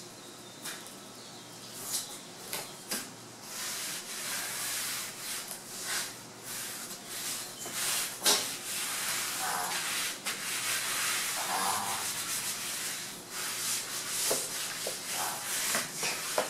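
Hands rubbing and smoothing foam-backed headliner fabric down onto a headliner board coated with contact adhesive: a rough brushing sound that grows louder about four seconds in, with a few sharp knocks along the way.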